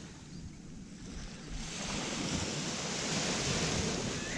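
Small waves washing up a sandy beach, the wash swelling about a second and a half in, with a low wind rumble on the microphone.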